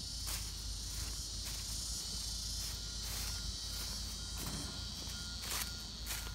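Insects droning in a steady high-pitched chorus, with a faint, evenly repeated note joining about two seconds in. Occasional footsteps on cut grass.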